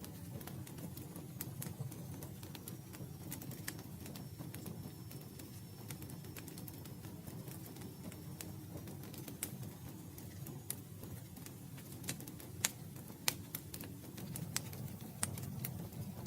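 Campfire crackling: irregular sharp pops and snaps of burning wood over a low steady rumble of the flames, with a few louder pops in the second half.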